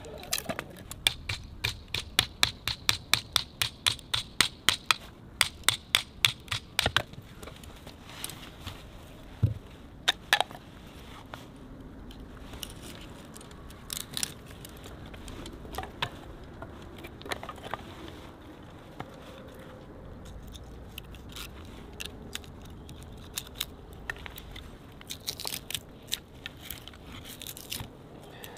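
A hatchet tapping wood in a fast, even run of sharp knocks, about four a second, for the first several seconds. Then come scattered single knocks and a short cluster near the end as thin sticks are split on a wooden chopping block.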